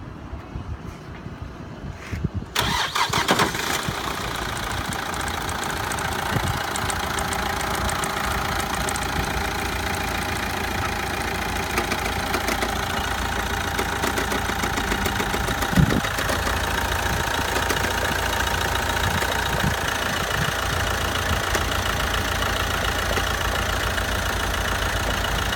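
Corsa D 1.7 CDTI four-cylinder diesel engine starting about two and a half seconds in, loud for a moment, then idling steadily, with one sharp knock about sixteen seconds in. The owner hears a knock on start-up that he likens to a ball bearing and cannot diagnose.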